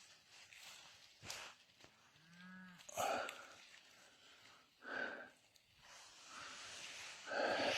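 A cow lows once, briefly, about two seconds in. A few short rustles come before and after it.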